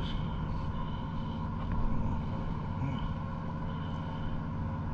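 A fishing boat's engine humming steadily.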